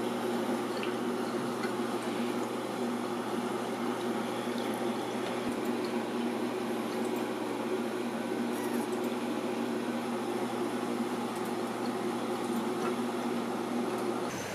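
Saltwater reef aquarium's circulating water, a steady rush and gurgle of flowing water with a steady low pump hum underneath. It cuts off abruptly near the end.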